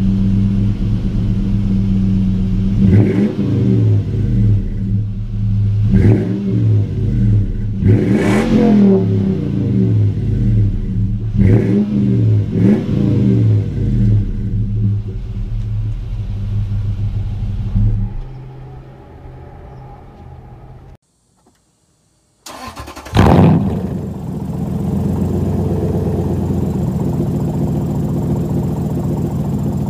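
Fourth-generation Toyota 4Runner's 4.7-litre V8 through an aftermarket exhaust, idling with five sharp throttle blips, then dying away into silence. Another 4Runner V8 then starts with a rev flare and settles into a steady idle.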